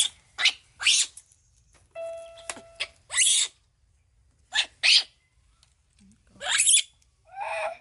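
Baby macaque giving short, shrill squeals, often in pairs, each falling in pitch, as it begs for its milk bottle.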